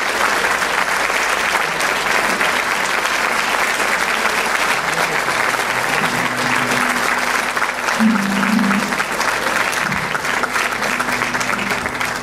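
Audience applauding steadily: dense, continuous clapping from a large crowd in a hall.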